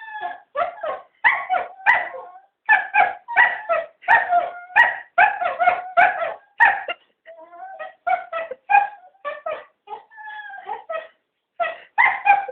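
Cocker spaniels whining, yipping and barking in a rapid run of short calls, several gliding up and down in pitch, as they beg to be taken for a walk.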